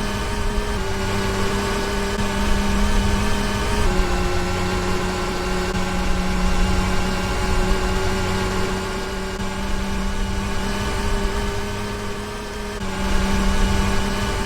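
Hotpoint washing machine's motor turning the drum, a steady pitched whine that steps slightly down in pitch about a second in and again about four seconds in, then rises a little near the end as the drum speed shifts.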